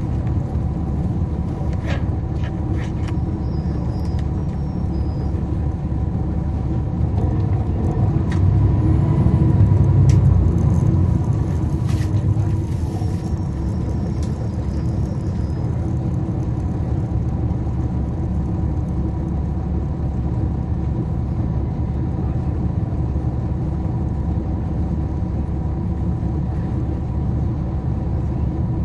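Cummins ISL9 diesel engine of a NABI 40-foot transit bus, heard from inside the bus, running steadily with a low rumble. It pulls harder and louder for a few seconds around the middle, then settles back. A few clicks and rattles come in the first few seconds.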